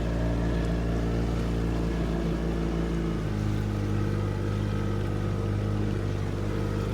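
A boat's engine running steadily underway, its note shifting slightly about three seconds in.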